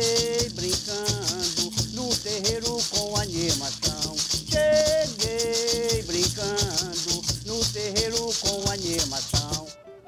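Boi-bumbá percussion group playing: maracas shaken in a steady dense rhythm with drum strokes underneath and a voice singing a toada melody over them. The music cuts off suddenly near the end.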